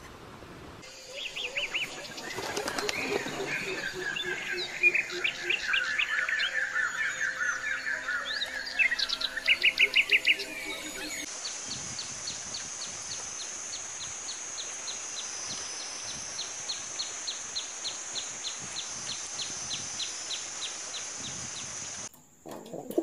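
Several songbirds chirping and trilling at once. About eleven seconds in the sound changes to a steady high hiss with one repeated short call, about three quick ticks a second.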